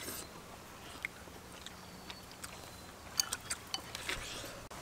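Several people eating halved white-fleshed dragon fruit: soft biting and chewing with scattered small mouth clicks, a little cluster of them about three seconds in.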